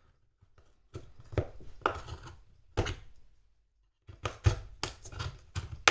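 Short clicks and knocks of small hand tools and phone parts being handled on a work surface during a smartphone teardown, in two clusters with a silent gap between.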